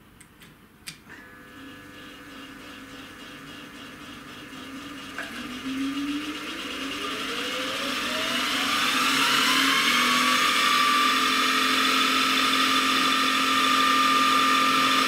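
Optimum MH 28V mill's variable-speed spindle drive switched on with a few switch clicks, then run up as the speed knob is turned: a whine rising steadily in pitch for about four seconds, then holding as a steady high whine at about 2,500 RPM.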